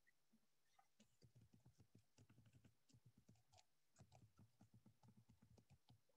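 Near silence, with faint scattered clicks throughout.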